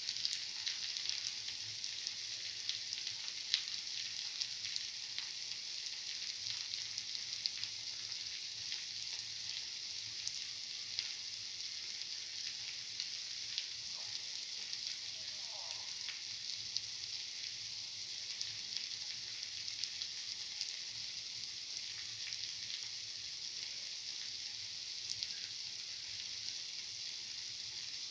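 Red lentil and chickpea-flour fritters shallow-frying in hot oil in a cavity pan: a steady sizzle with many small crackles and pops.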